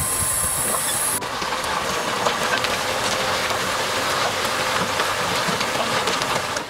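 A load of soil and stones pouring out of a tipping Fliegl dump body through its open tailgate: a steady rushing noise with small stones clattering. A high hiss drops away about a second in.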